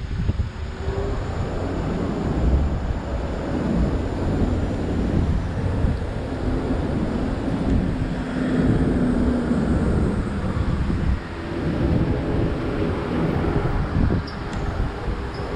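City road traffic: vehicles running past in a steady low rumble, with wind buffeting the microphone.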